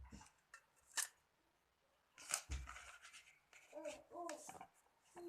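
Sharp clicks and light rustling of cut putri malu (mimosa) leaves being handled and dropped into a small pan, with a brief faint pitched sound about four seconds in.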